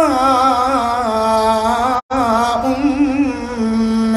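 A man reciting the Quran in a slow, melodic tilawah style, drawing out long wavering notes. The sound cuts out for a split second about halfway through.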